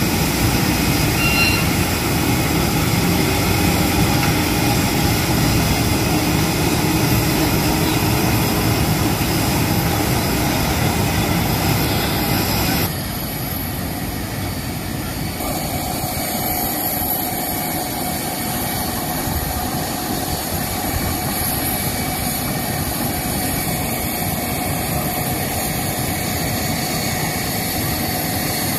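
Steady jet engine whine and rumble of aircraft on an airport apron. Several steady tones sit over the rumble. The sound changes abruptly and drops a little in level about 13 seconds in.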